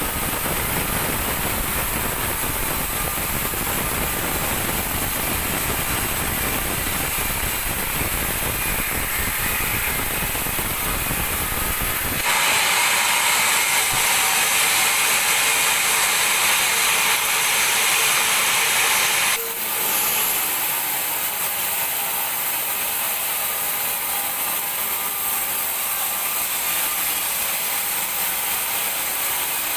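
Sawmill band saw running and cutting teak wood, a steady loud mechanical noise. About twelve seconds in it turns abruptly into a brighter, harsher hiss, and it changes again about seven seconds later.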